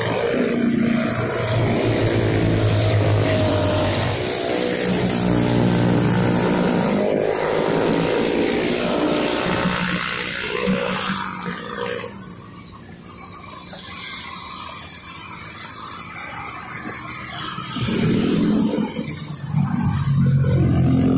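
A car and a stream of motorcycles and scooters passing by, their engines rising as each goes past and then fading. The traffic quietens about halfway through, then more motorcycles approach and grow louder near the end.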